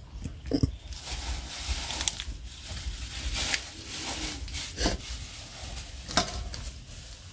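Small plastic seasoning sachets being torn open and squeezed out by hand, the plastic crinkling and rustling with a few sharp clicks.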